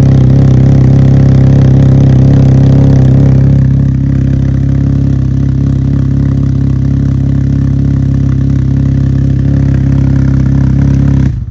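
Can-Am Ryker 900 Ace's Rotax three-cylinder engine idling steadily through an aftermarket Silber Turbo muffler with its baffle removed. It gets a little quieter about four seconds in and cuts off suddenly near the end.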